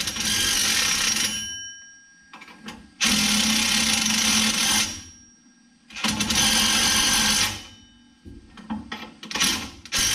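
Compact cordless impact driver running nuts down onto U-bolts, rattling in three bursts of about one and a half to two seconds each, then a few short blips near the end as the nuts are snugged up.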